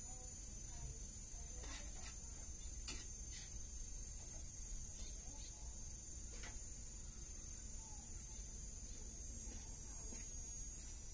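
Insects chirring in a steady, high-pitched drone, with a few faint clicks.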